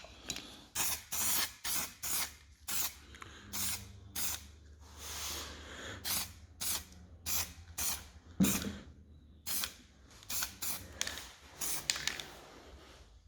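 Many short hissing spray bursts, about two or three a second, from a spray nozzle working over small parts. There is a longer hiss about five seconds in and a knock about eight and a half seconds in.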